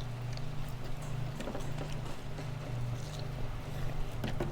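A person chewing food, with a few small wet clicks and crunches, over a steady low hum.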